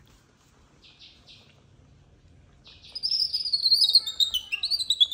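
Baby macaque crying with high, shrill calls: two brief chirps about a second in, then from near three seconds a loud run of cries that slide downward in pitch.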